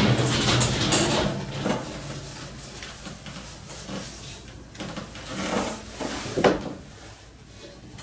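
Close handling noises: rubbing and sliding sounds with a few knocks, loudest at the start and again about six and a half seconds in.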